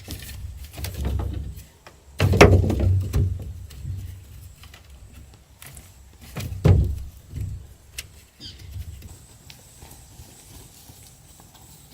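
Two heavy, dull thuds, one about two seconds in and a louder-peaked one past the middle, with lighter knocks and scraping between them.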